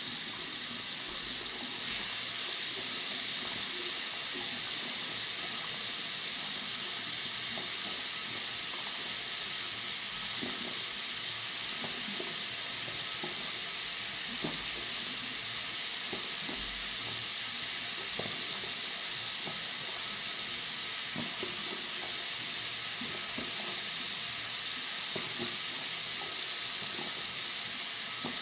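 Water running steadily from a bathroom sink tap, heard as an even, fairly high hiss with small splashes and drips underneath.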